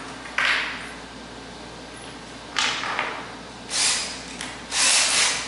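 Four short swishing, hissing sounds. The first two start abruptly and fade within about half a second; the last two swell up and die away.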